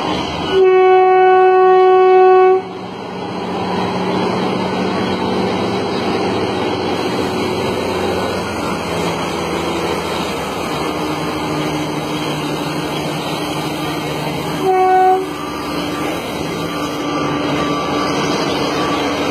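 A train horn blows one long, steady blast of about two seconds, then one short blast near the end, over the steady running rumble of the train, whose engine hum slowly shifts in pitch.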